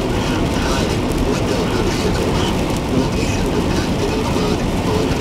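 Steady road and engine rumble heard inside a moving vehicle, a constant dense noise with a strong low end.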